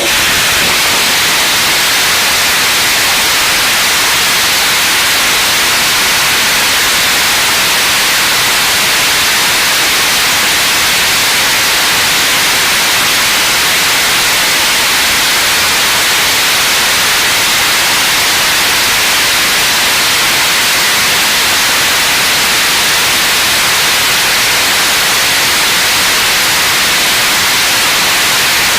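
3D-printed, regeneratively cooled E-1 liquid rocket engine firing at steady full thrust during a long-duration test burn: a loud, unbroken, even rushing roar that holds constant.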